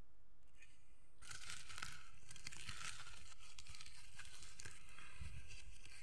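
Woven plastic sack rustling and crinkling as it is handled, starting faintly just over half a second in and growing dense and crackly from about a second in.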